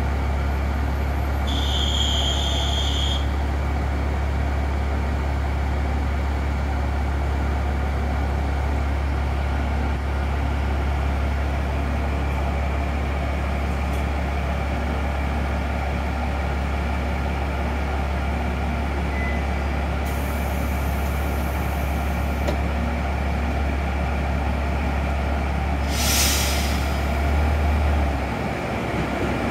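Miki 300 diesel railcar idling at the platform, a steady low engine drone. A short electronic beep comes about two seconds in, and a brief burst of compressed-air hiss near the end.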